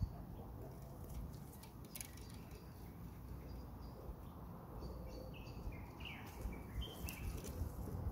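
Small hand rake scratching and scraping through loose garden soil, with a few sharp scrapes. A bird chirps a short run of quick notes, stepping down in pitch, in the background from about halfway through.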